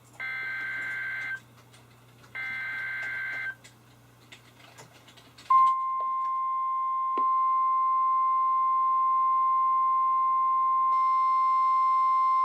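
NOAA Weather Radio Specific Area Message Encoding (SAME) alert header: two harsh buzzing data bursts, each about a second long, a second apart. About five and a half seconds in comes the steady high-pitched warning alarm tone, which marks an alert. Further steady tones join after a click a little later and again near the end.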